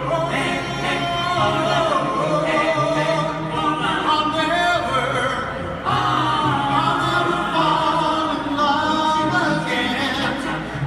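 A mixed vocal group of four men and a woman singing a song in close harmony through microphones and a PA, heard live from the audience of a concert hall.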